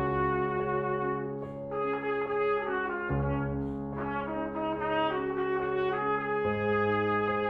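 Brass instruments playing a slow, lyrical melody over sustained low notes, with the low notes changing twice, about three seconds apart.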